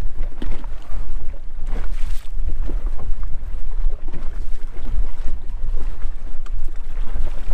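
Strong wind buffeting the microphone, with choppy water lapping and splashing irregularly against an inflatable boat.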